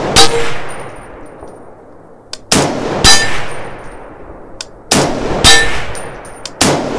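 Rifle shots from a JP Rifles LRP-07 in .260 Remington, fired about every two and a half seconds. Each shot is followed about half a second later by a louder ringing clang of the steel hanging target being hit, three clangs in all.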